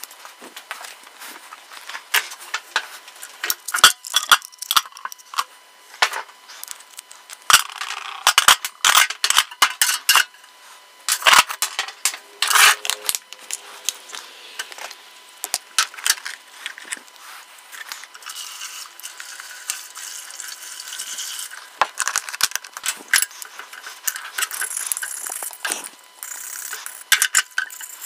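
Metal hand-drill parts (cast gears, frame and small pieces) clanking and clinking as they are handled and set into a galvanized steel bucket: many separate sharp knocks, thickest in the first half. A steadier hiss with fewer knocks follows in the last third.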